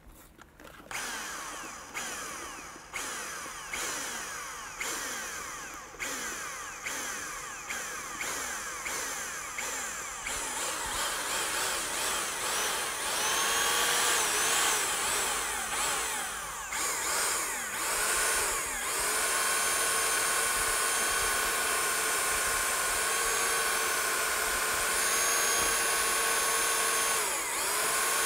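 Large paddle mixer drill churning urethane concrete in a plastic bucket as the powdered third part is poured in. For the first third it is pulsed on and off about once a second, then it builds up and runs steadily at speed with a constant whine.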